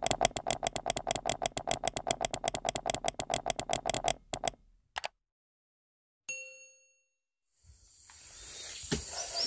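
Typewriter sound effect: rapid key clacks, about eight a second, for the first four and a half seconds, then a single bell ding about six seconds in. Near the end a rising whoosh swells up.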